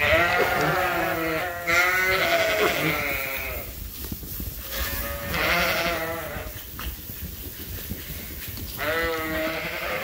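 Several sheep bleating in overlapping, wavering calls, in three bouts: a long one at the start, another about five seconds in, and a shorter one near the end. The flock is calling for feed as the bucket comes along the pens.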